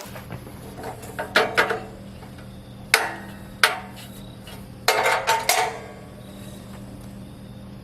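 Metal grill parts knocking and clicking against the grill's frame as pieces are fitted into place: a few single sharp knocks, then a quick clatter of several about five seconds in.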